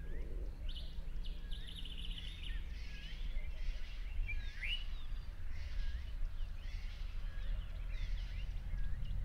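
Several birds chirping and calling, short curving whistled notes and a brief rapid trill, over a steady low rumble.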